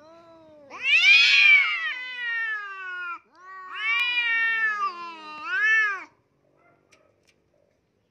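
Domestic cat yowling at another cat in a face-off, a drawn-out threat yowl. There are two long, wavering yowls, each rising sharply and then sliding down in pitch, and the second ends with a brief upturn.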